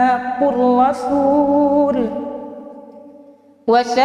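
A young imam's melodic Quran recitation: one man's voice holding and ornamenting a long drawn-out vowel at the end of a verse phrase, fading out after about two seconds. The next phrase starts just before the end.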